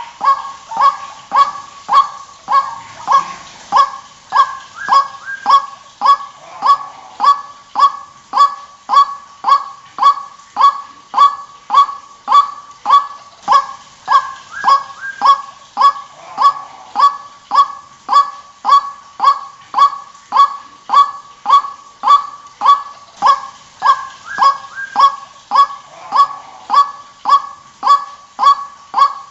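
White-breasted waterhen calling in a long, steady series of loud, evenly spaced notes, roughly one and a half to two a second, with a few overlapping higher notes mixed in here and there. A lure call for drawing in waterhens.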